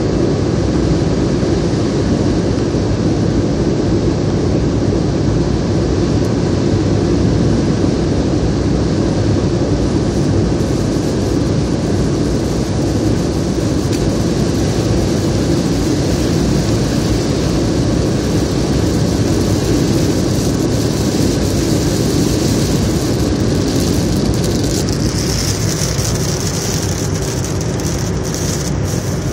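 Steady road, tyre and engine noise inside a car's cabin at highway speed. Light ticks of raindrops hitting the windshield come in partway through and grow more frequent near the end.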